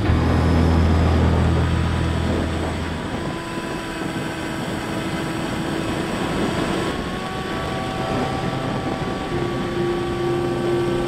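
Wind rushing past a Bixler 3 RC plane's onboard camera in flight, with the steady whine of its electric motor and propeller. The motor's pitch shifts about seven seconds in.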